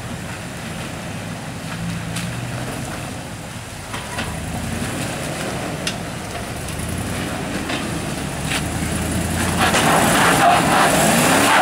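Land Rover Discovery's engine working at low speed as it crawls over rocks, with a few sharp knocks along the way. It grows louder and revs up over the last couple of seconds.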